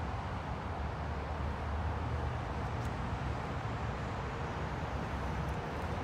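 Engine of the heavy machine lifting the suspended skid steer, running steadily with a low hum. A couple of faint clicks come near the middle and toward the end.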